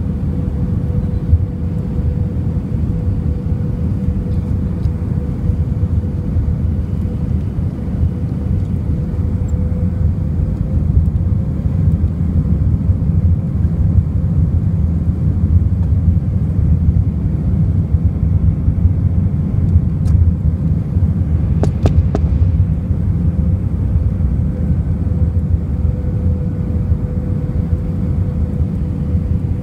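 Airbus A319 cabin noise on approach with flaps extended: a steady, loud rumble of airflow and jet engines with a steady hum running through it. A few faint clicks come about two-thirds of the way through.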